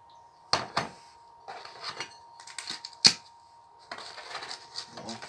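Orange plastic bowl knocking and scraping on a ceramic plate as it is turned over and pressed down onto a heap of powder: a few sharp knocks, the loudest about three seconds in, with rustling and scraping between.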